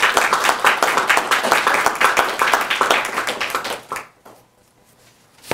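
Audience applauding, the clapping dying away about four seconds in; a single thump near the end.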